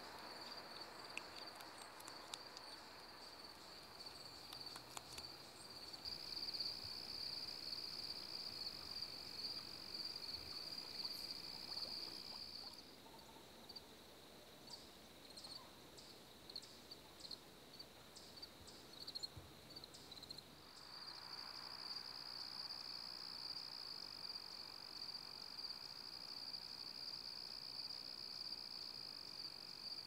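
Faint chorus of insects trilling steadily in a high, even pitch. Partway through, the continuous trill drops out for several seconds, leaving separate short chirps. The steady trill then returns along with a soft hiss.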